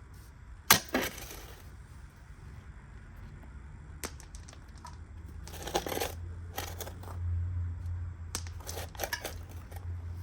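Scattered crunches, scrapes and knocks of planting work in soil, the loudest a single sharp knock about a second in. A low rumble builds in the second half.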